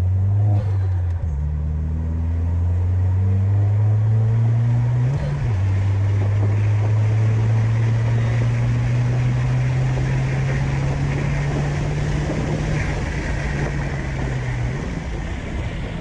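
Stage 2 tuned Peugeot 208 GT's 1.6 THP turbocharged engine accelerating hard, its pitch climbing, with gear changes about a second in and about five seconds in, then a long pull in a higher gear until the throttle lifts near the end. Road and wind noise grow as speed builds.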